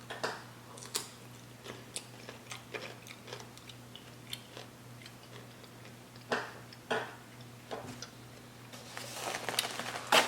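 Close-miked chewing of crisp cucumber slices in seafood-boil sauce: irregular wet crunches and mouth clicks, a few sharper bites near the start and again about two-thirds through.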